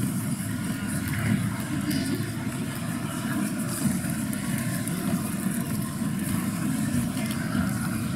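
Steady, even background noise of a large convention hall, mostly a low rumble, with no single event standing out.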